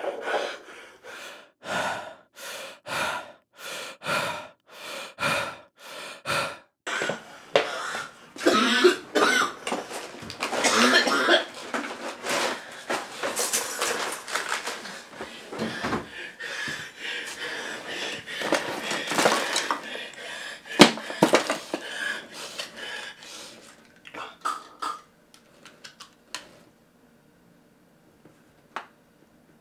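A man coughing and gasping in distress. Short hard breaths come about every half second at first, then longer strained sounds, dying down to a few faint breaths near the end.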